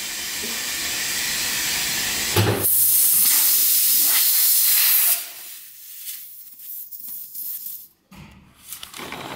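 Compressed air hissing steadily at a car tyre's valve stem on a tyre changer. It grows louder, turns sharply louder about two and a half seconds in, and cuts off suddenly about five seconds in.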